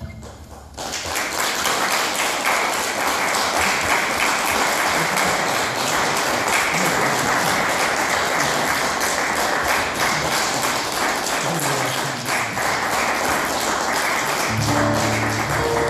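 Audience applauding: dense, steady clapping that starts about a second in and eases near the end, where a few low pitched tones come in.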